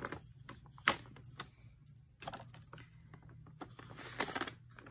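Scattered light clicks and ticks of a plastic paint tub and its lid being handled and worked open, with a sharper click about a second in and a pair of sharp clicks near the end.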